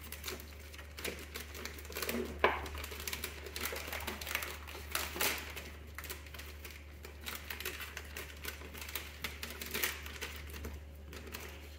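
Adhesive label waste matrix being peeled off its backing by hand: irregular crackling and clicking of the sticky paper, with one sharper click about two and a half seconds in. A low steady hum runs underneath.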